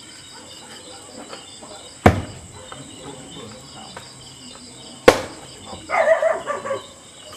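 Insects chirping steadily in an even pulse, with two sharp knocks about three seconds apart, like hammer or chopping blows. A short pitched sound follows a second after the second knock.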